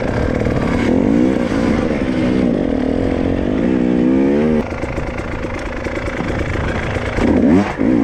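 Two-stroke KTM 300 TPI enduro motorcycle engine on rough off-road ground, its revs rising and falling again and again as the throttle is worked. The sound changes abruptly about halfway through, then the revs climb again near the end.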